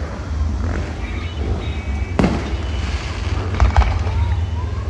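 Fireworks going off: one loud bang about two seconds in, then two sharp cracks close together a second and a half later, over a steady low rumble.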